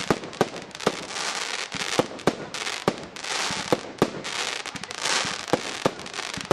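Aerial fireworks firing shot after shot in a rapid string of sharp bangs, about two to three a second, with hissing and crackling between them.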